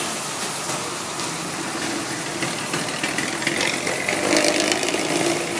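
Bus diesel engine idling steadily, with road noise around it; the horn is not sounding.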